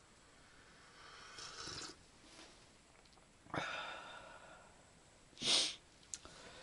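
A man sipping hot tea from a travel mug and breathing out heavily between sips, a few separate breaths; a short sharp sniff about five and a half seconds in is the loudest sound.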